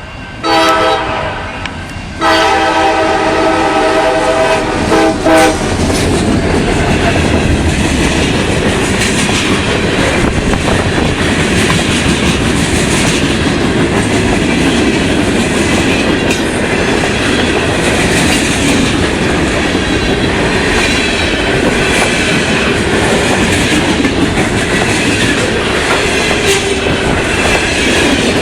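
Diesel locomotive air horn on a CSX GP40-2 sounding two blasts in the first five seconds, the second about twice as long as the first. After that comes the steady loud noise of the freight train's cars rolling past on the rails.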